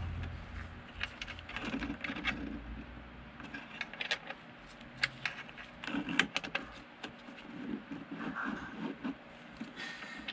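Scattered light clicks and rustling as gloved hands handle wires and push rubber-booted connectors onto the ammeter terminal posts on the back of an instrument cluster.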